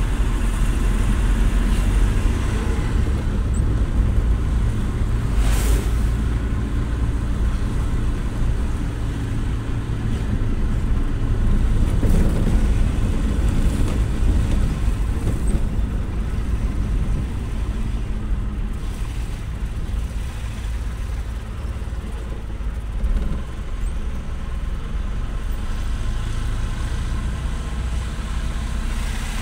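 Steady low engine and road rumble of a vehicle being driven, heard from on board, with a brief rush of noise about six seconds in.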